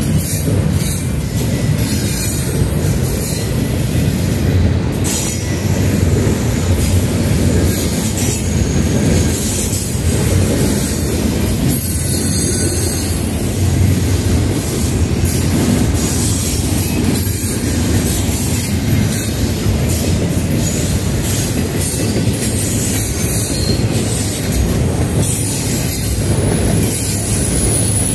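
A Canadian National intermodal container train rolling steadily past at close range: a continuous loud rumble of steel wheels on rail, with high wheel squeal at times.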